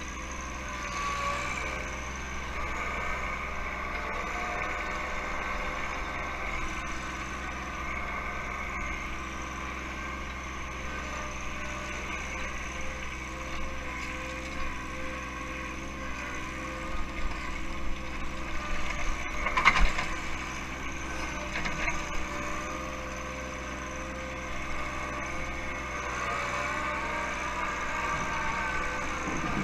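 John Deere 1-series compact tractor's diesel engine running steadily as its backhoe works snow banks. About two-thirds of the way through, a cluster of knocks and crunches sounds, the loudest a sharp bang.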